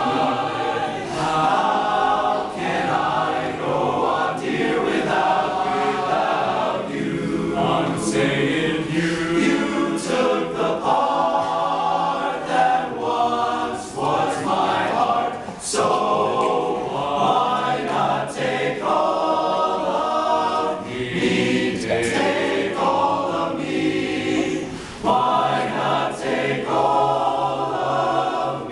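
Male barbershop chorus singing a cappella in close four-part harmony.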